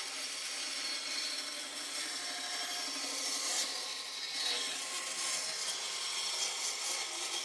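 Bandsaw cutting through a thick tabletop of glued end-grain wood blocks, the panel fed steadily into the blade; a steady sawing noise.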